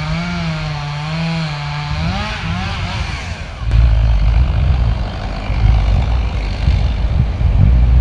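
Chainsaw running with a wavering pitch that rises briefly near three seconds. It gives way suddenly to a louder, heavy low rumble like wind buffeting the microphone.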